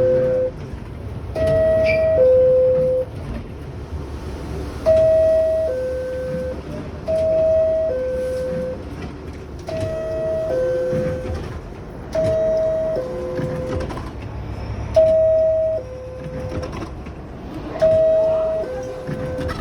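Door-closing chime of R62A New York City subway cars: a descending two-note ding-dong, sounding seven times, about once every two and a half to three seconds, over a low rumble.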